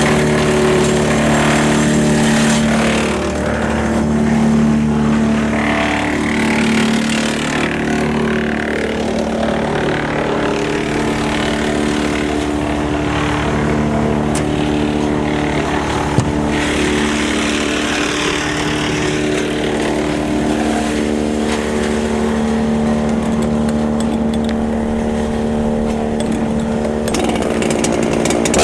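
Tractor engine running steadily, driving a Woodland Mills TF810 PTO wood chipper through the power take-off; the sound changes just before the end.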